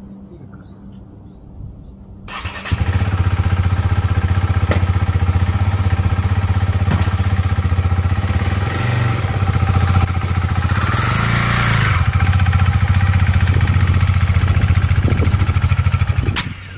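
KTM 390 Duke's single-cylinder engine starting about two seconds in, then running at idle, with the revs rising briefly a couple of times before it stops near the end.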